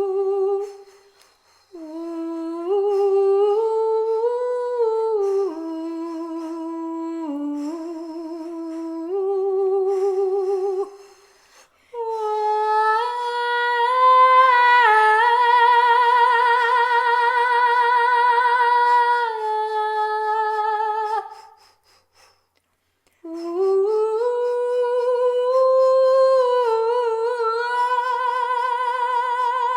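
Unaccompanied wordless intuitive chanting by a single high voice: long held notes with vibrato that glide from pitch to pitch, in phrases broken three times by short breath pauses.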